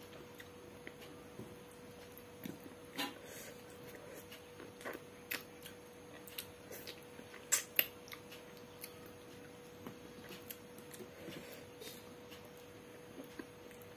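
Eating by hand from steel dishes: scattered small clicks and smacks of chewing and fingers on the food, with two louder clicks close together about halfway through, over a faint steady hum.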